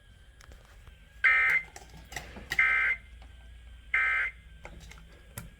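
Three short bursts of Emergency Alert System digital data tones (SAME), a buzzy warble about a second and a half apart. Bursts this short match the end-of-message code that closes an alert.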